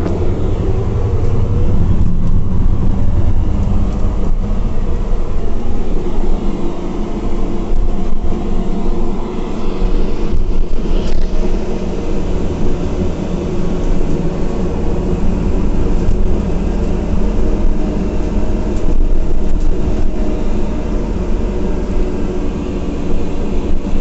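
Scania OC09 five-cylinder CNG engine of a Scania Citywide low-floor city bus running steadily under way, heard from inside the passenger cabin as a continuous low drone with road rumble.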